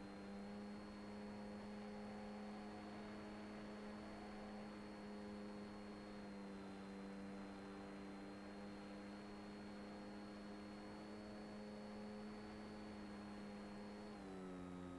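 Motor vibration hum from the Swift II's brushless outrunner, heard over the FPV video link's audio as a faint, steady hum of several tones together. Its pitch steps up at the start as throttle is applied and falls back shortly before the end. This is the vibration sound that comes with applying throttle.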